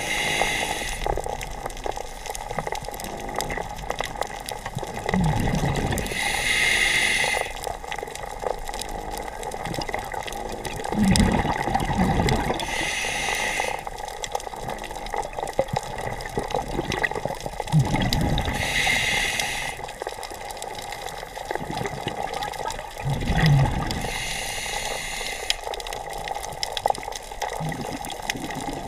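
Scuba diver breathing through a demand regulator underwater. Each breath is a short hiss on the inhale and a bubbling burst on the exhale, about one breath every six seconds.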